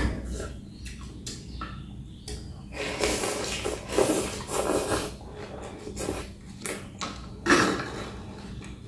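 Close-miked eating sounds: chewing and slurping of rice noodles and fish with small clicks, the busiest stretch of slurping about three to five seconds in and a short louder burst about seven and a half seconds in.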